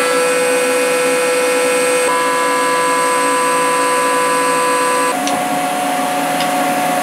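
CNC milling machine spindle running and an end mill cutting a metal block, a steady whine. About five seconds in, the whine switches to a different steady pitch.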